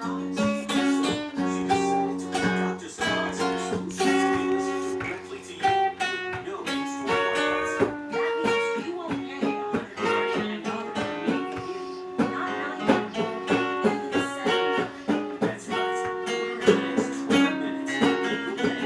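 Guitar music: plucked and strummed acoustic guitar playing throughout.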